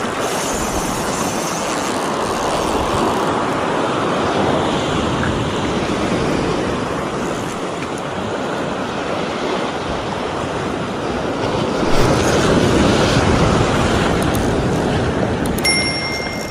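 Sea waves washing onto the shore, a steady rushing surf that swells louder about twelve seconds in.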